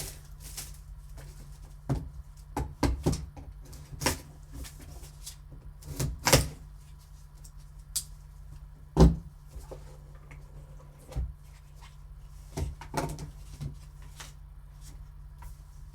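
A cardboard trading-card box and its card packaging being handled and opened: scattered clicks, taps and rustles, with one sharper knock about nine seconds in, over a steady low hum.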